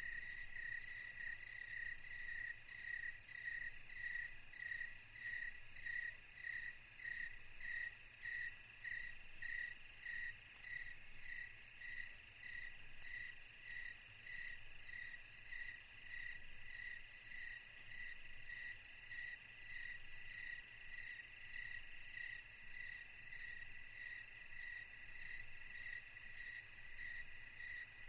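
Insects chirping steadily at night, a repeating pulsed chirp about two times a second over a constant high-pitched insect drone.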